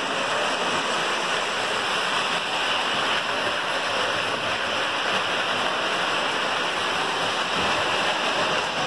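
Lionel postwar O-gauge toy train running around a three-rail layout: a steady, unchanging rumble and whir of its motor and wheels on the tubular track.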